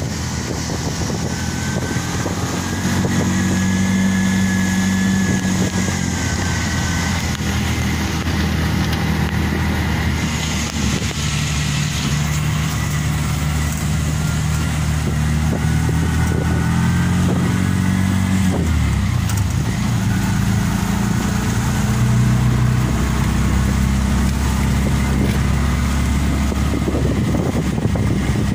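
Auto-rickshaw engine running while the three-wheeler drives along a dirt track, heard from inside the cabin. Its pitch steps up and down as the speed changes.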